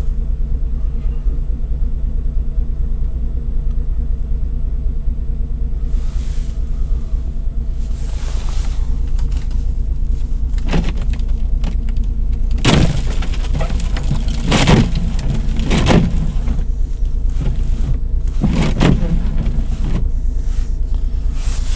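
Car engine idling steadily at a fast cold-start idle a little above 1,000 rpm in below-zero cold, a low hum heard from inside the cabin. From about six seconds in, jacket fabric rubs against the microphone in short rustles every second or two.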